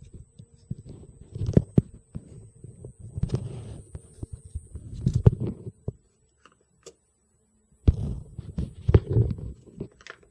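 Faint, steady high-pitched electronic whine from the powered board of a lightning-damaged Dynex wireless router that draws current but does not work. Louder low thumps and rustles of handling come and go over it.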